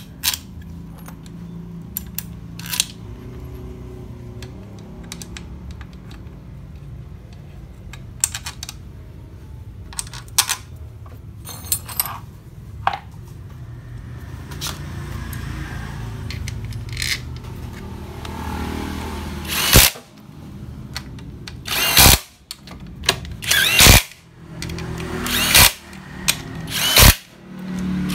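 Scattered light metallic clicks of bolts and parts being handled, then a cordless power driver running in five short bursts over the last eight or so seconds, driving the scooter's CVT cover bolts in.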